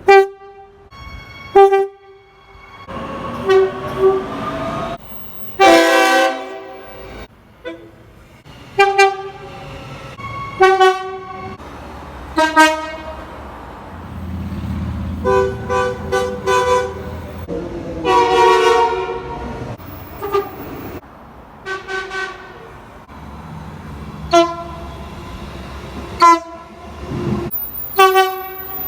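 Train horns sounding in a string of short and longer blasts, one train after another. A few of the blasts slide down in pitch as a train passes, and a low rumble of a passing train runs under the middle stretch.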